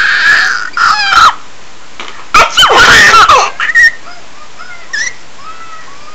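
Baby squealing with laughter in high-pitched shrieks: a held squeal at the start, short shrieks about a second in, the loudest burst about two and a half seconds in, falling in pitch, then a few small squeaks.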